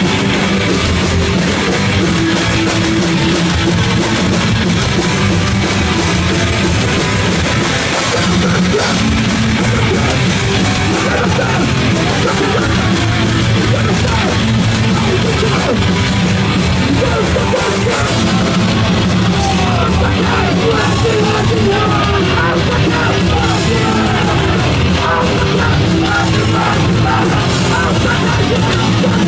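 A live hardcore punk band playing loud and without a break: distorted electric guitar, a drum kit and a vocalist singing into a microphone.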